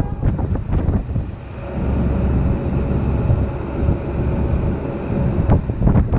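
Steady low rumble of wind buffeting the microphone, dipping briefly about a second and a half in, with a few faint knocks.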